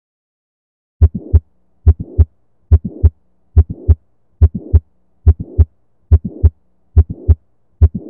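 Recorded human heartbeat with a murmur, about 70 beats a minute, starting a second in: nine beats, each a pair of low thumps (S1 and S2) with a rough rasping murmur filling the gap between them, a systolic murmur.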